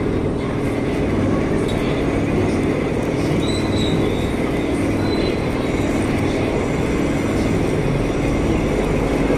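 Metal lathe running with a steady hum, turning a steel sliding-gate wheel. A faint high tone comes in briefly twice in the middle.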